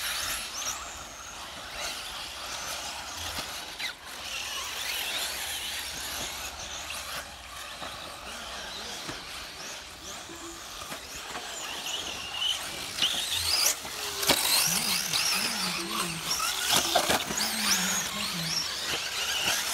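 Electric off-road RC buggies racing, their motors whining and rising and falling in pitch as they accelerate and brake around the track. Voices are faintly audible in the second half.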